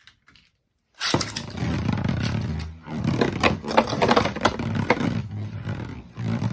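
A Beyblade, the Samurai Ifrit W145CF spinning top, launched about a second in, then spinning on its circle-flat tip and scraping around a plastic stadium with frequent clicks and knocks against the walls, moving aggressively.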